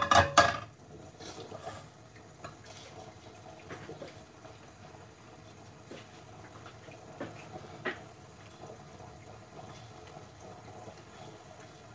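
A metal frying pan with oil in it clatters as it is set down on a gas hob's grate at the start. After that there is only a low steady background with a few faint ticks while the oil heats.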